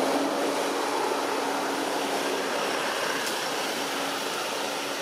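Steady outdoor background noise with a faint, even hum underneath and no distinct events.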